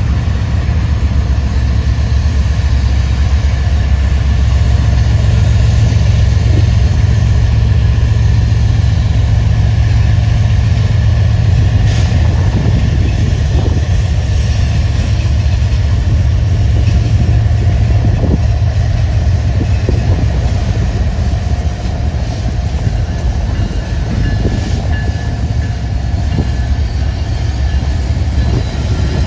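A train passing close by: a loud, steady low rumble with a few sharp clicks partway through.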